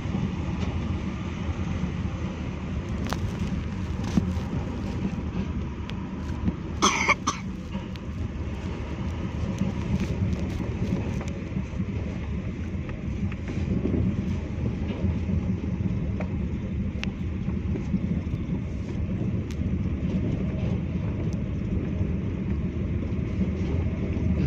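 Steady low rumble of a car driving slowly over a rough gravel road, heard from inside the cabin, with scattered light clicks and rattles. A short, sharp louder noise comes about seven seconds in.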